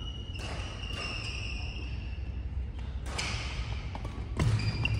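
Badminton rally: sharp racket hits on the shuttlecock, one just after the start, one a little past three seconds and one near the end, echoing in a large hall, with high-pitched squeaks of court shoes on the wooden floor.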